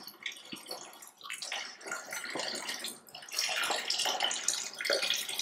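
Chicken stock poured in a stream from a tilted pot into a large metal pot, the meat held back with a slotted spoon: a steady splashing trickle of liquid that grows louder about three seconds in.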